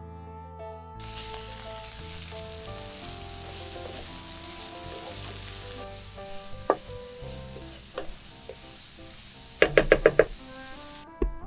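Diced onion and grated carrot sizzling in hot oil in a frying pan, starting about a second in, as a wooden spatula stirs them. A few scrapes and a quick run of about five knocks of the spatula against the pan come near the end.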